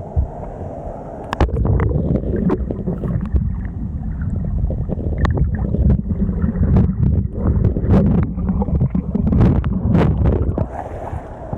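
Waterfall water pouring and splashing close to the microphone: a heavy, muffled rumble with many sharp crackles, starting about a second and a half in.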